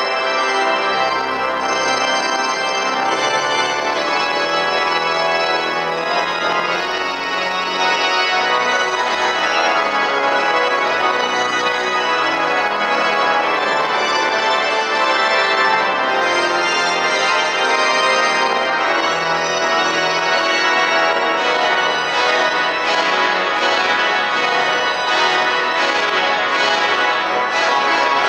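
Pipe organ playing full, sustained chords that change every second or two, with a quick repeated high figure joining over the last few seconds.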